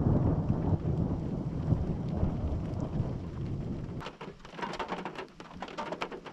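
Thunder rumbling low and slowly fading away. About four seconds in it gives way to scattered, irregular taps of raindrops hitting a car.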